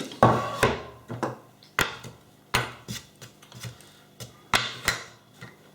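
Hand tools working on a plastic electrical connection box: a run of about ten irregular sharp clicks and knocks, some followed by a short scrape.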